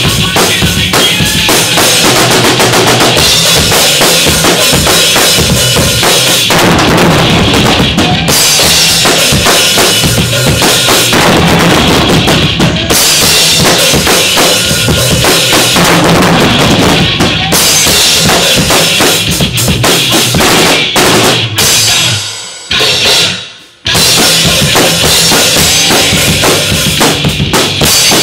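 Tama drum kit played hard in a fast thrash-metal beat: bass drum, snare and cymbals. The playing stops dead for about a second around 23 seconds in, then comes back in at full force.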